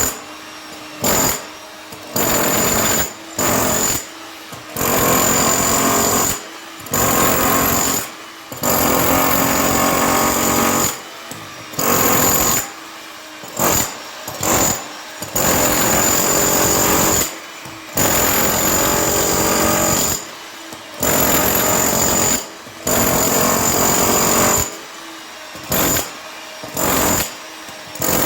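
Hilti TE 70 combihammer hammering into concrete in repeated bursts of one to four seconds, cut off between bursts as the trigger is released and squeezed again.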